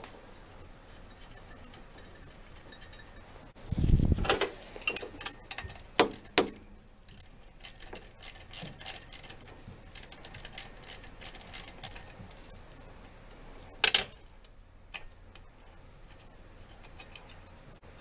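Wrench work on the alternator bracket of a small-block Chevy: a string of irregular metallic clicks and clinks as the adjuster bolt is turned out, with a heavier thump about four seconds in and a single sharp clack near the fourteen-second mark.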